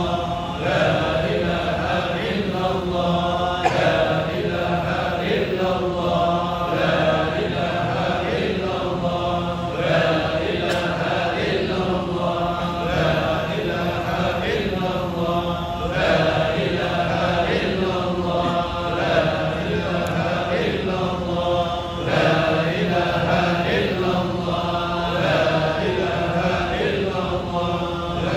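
A congregation chanting an Arabic devotional phrase together in unison. The short phrase is repeated steadily, about once every three seconds.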